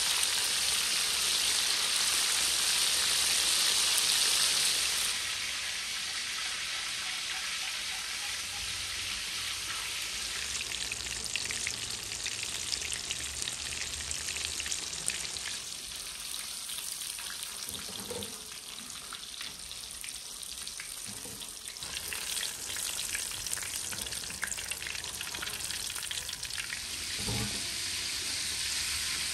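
Battered chicken fillets deep-frying in a wide pan of hot oil: a dense sizzle, louder for the first five seconds or so, then settling to a steady sizzle. A couple of brief soft knocks come around the middle and near the end.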